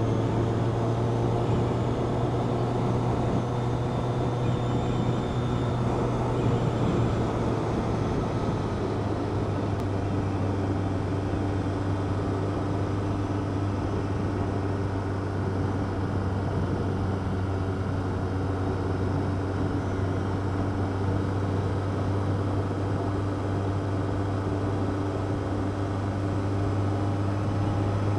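Motorcycle engine running steadily at cruising speed over a constant rush of noise, its pitch dropping a little about a quarter of the way in.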